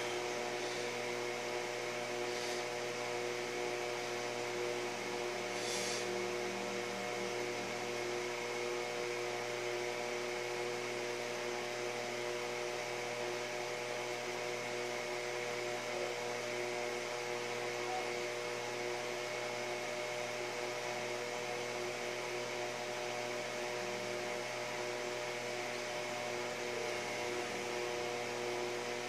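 Steady electrical hum made of several fixed tones over a constant hiss, unchanging throughout.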